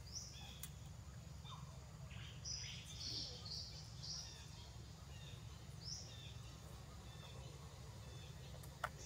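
Faint high-pitched animal squeaks: a single one near the start, a quick run of several about two to four seconds in, and another about six seconds in, over a low steady hum. A sharp click comes near the end.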